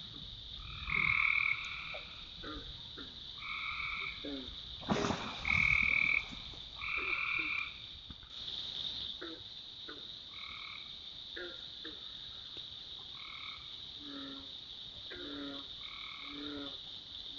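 Frogs calling: repeated croaking calls, each about half a second long and roughly a second apart, over a steady high-pitched background chorus. A brief rustle about five seconds in, and shorter, lower calls near the end.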